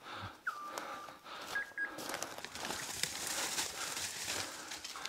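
Dry leaf litter and brush crackling and rustling underfoot as the hunter pushes through undergrowth. Near the start come two short whistle tones: one that drops in pitch and holds for under a second, then a shorter, higher one.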